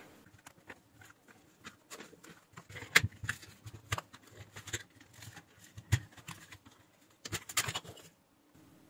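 Plastic clicks, taps and knocks as the bottom cover of a Sencor digital bathroom scale is pried loose and lifted off. Sharper knocks come about three and six seconds in, with a quick run of clicks near the end.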